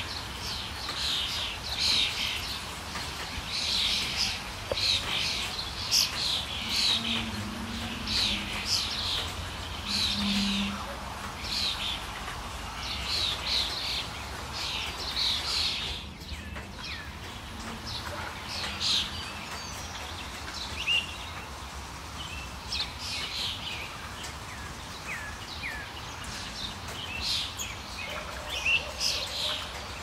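Birds chirping and calling: many short, high chirps repeated quickly, dense in the first half and sparser after a break about halfway through.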